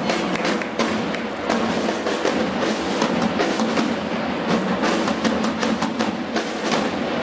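Parade drums beating a rapid march rhythm to accompany a flag-throwing display, with held notes sounding underneath.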